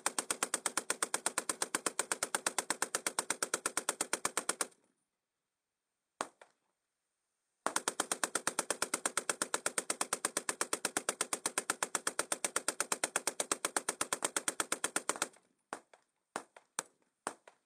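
Maxim M1910 water-cooled heavy machine gun firing sustained automatic bursts at about ten rounds a second. The first burst stops about four and a half seconds in, and after a pause of about three seconds a second long burst runs about eight seconds. It is followed near the end by a few single sharp reports.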